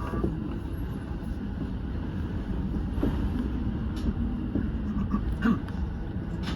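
Keiyo Line electric train running, heard from inside the front car: a steady rumble of wheels on the rails, with a few faint clicks.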